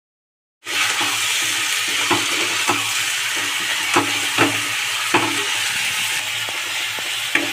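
Marinated chicken sizzling in hot ghee in a kadhai while a steel spatula stirs it, scraping and tapping against the pan now and then. The sizzle cuts in suddenly about half a second in.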